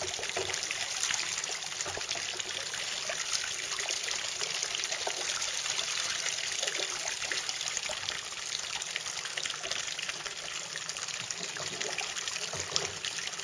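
A steady jet of water from a sea kayak's electric bilge pump splashing and trickling onto the lake surface, as the pump empties the flooded cockpit after a re-entry.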